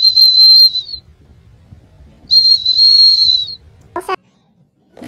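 A golden retriever blowing a blue plastic whistle held in its mouth: two long, shrill, steady blasts, the second a little longer, a little over a second apart.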